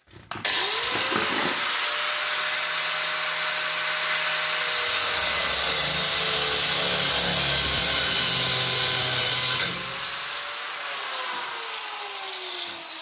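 Angle grinder with a cut-off disc spinning up with a rising whine, then cutting through a protruding metal bolt. The cut is loudest for about five seconds in the middle. The grinder then runs down, its whine falling in pitch.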